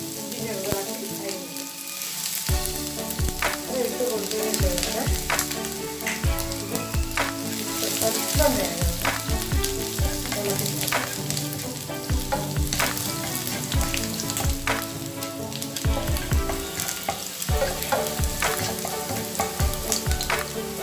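Chopped garlic and ginger sizzling in hot coconut oil in a nonstick frying pan, stirred with a wooden spatula that scrapes and taps against the pan many times.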